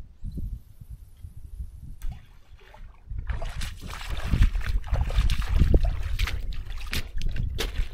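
Rubber boots wading and splashing through shallow river water, the sloshing steps getting louder and closer from about three seconds in.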